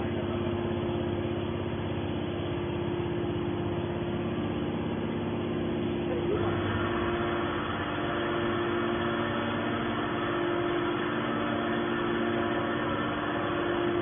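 The hydraulic power unit of a TCM scrap-metal baler, its electric motor and pump running steadily with a low hum. About six seconds in a higher whine joins and holds.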